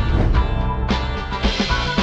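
Upbeat intro theme music with a steady drum beat and heavy bass.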